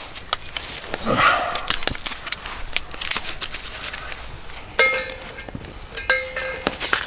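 Stainless steel stick stove being handled: scattered knocks and clicks, then two ringing metal clinks about five and six seconds in.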